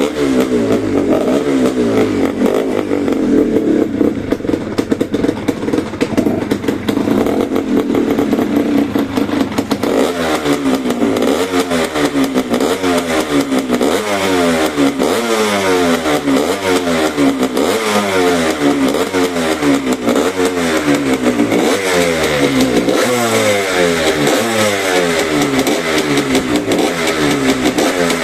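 Suzuki RA125 two-stroke single-cylinder motorcycle engine running through a stock Suzuki RG250 Gamma silencer. Its note is steady at first, then from about ten seconds in it rises and drops again and again, about once a second.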